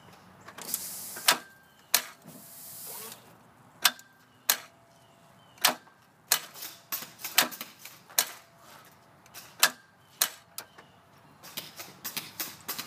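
2001 Honda Accord four-cylinder's starter clicking sharply with each attempt to turn the engine over, with a quicker run of clicks near the end and no cranking or firing. The engine will not turn: one mechanic took this for a seized engine, another for a bad starter.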